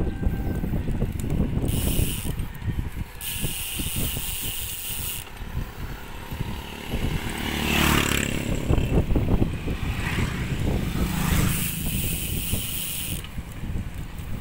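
Riding a bicycle: wind buffets the microphone with a gusty rumble, over the rattle and ticking of the bicycle's chain and freewheel. A brief pitched, rising tone stands out about halfway through.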